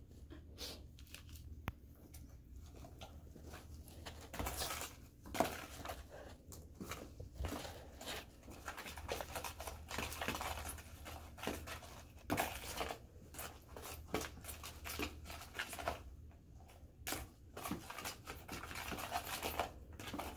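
Sticky glue-and-sand slime being kneaded by hand and stirred in plastic mixing bowls: an irregular run of soft squishing and scraping noises.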